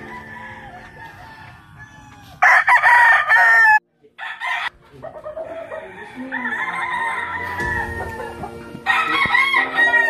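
Roosters crowing: one loud, drawn-out crow about two and a half seconds in that cuts off abruptly, then shorter calls and more crowing near the end.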